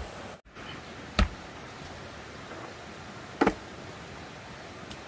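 Two sharp knocks about two seconds apart over a steady hiss.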